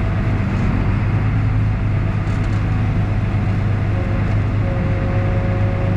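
Farm tractor's diesel engine running steadily under way, heard from inside the cab as a low, even drone. A faint steady whine joins it about four seconds in.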